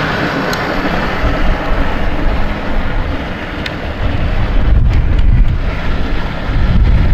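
Wind buffeting the microphone, a low rumble that gusts stronger in the second half, over the running of a 12-volt Fisher-Price Power Wheels Harley-Davidson ride-on motorcycle, its electric drive and plastic wheels rolling on asphalt.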